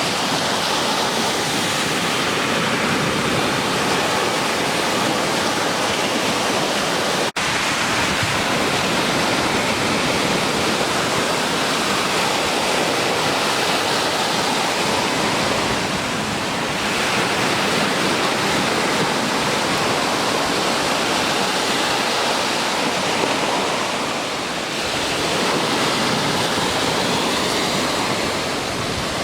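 Ocean surf breaking continuously at a river-mouth beach in post-typhoon swell, an unbroken wash of surf noise that swells and eases slightly. The sound cuts out for an instant about seven seconds in.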